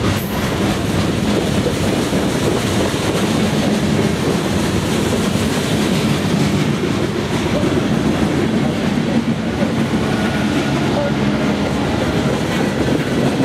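Freight cars of a mixed freight train (lumber-loaded centerbeam flatcars, tank cars and boxcars) rolling past close by: a loud, steady rumble of steel wheels on the rails.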